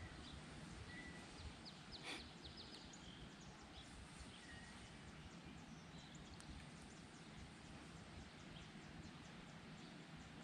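Near silence: faint outdoor ambience with a few faint bird chirps and a single light click about two seconds in.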